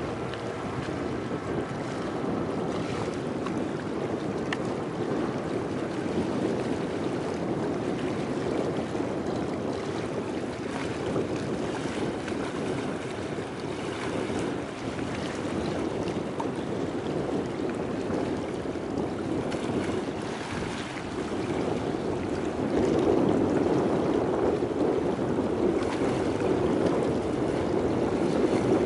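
Steady rushing wind noise on the microphone, getting louder about three quarters of the way through.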